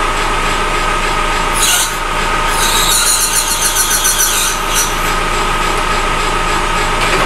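Lathe running with a steady whine while a cut-off blade parts through plastic rod stock. The cut squeals in high-pitched bursts from about a second and a half in until about four and a half seconds in.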